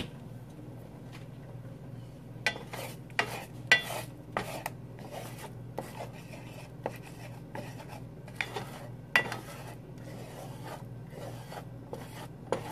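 Wooden spatula scraping and knocking against a frying pan while scrambling eggs, in irregular strokes that start about two seconds in. A steady low hum runs underneath.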